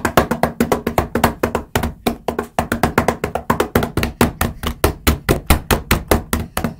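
Hands drumming rapidly on a hard surface as a drum roll, an even run of sharp knocks at about eight hits a second.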